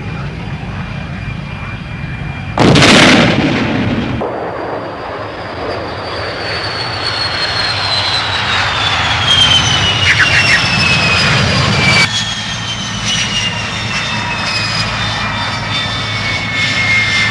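Jet fighter engines running: a loud blast of jet noise about three seconds in, then a high turbine whine that falls slowly in pitch over a low rumble, breaking off at an edit about twelve seconds in and going on lower.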